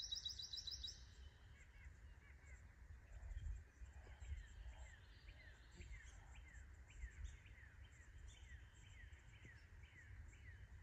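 Faint birdsong in a pine forest: one bird repeats short down-slurred notes about twice a second, and a quick high trill ends about a second in. A low rumble runs underneath.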